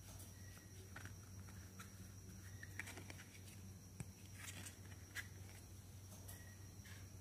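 Faint scattered clicks and taps of a small hard-plastic toy vanity mirror being handled, over a steady low hum.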